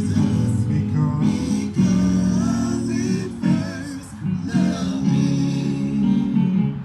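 Guitar music with strummed chords, played as an instrumental stretch.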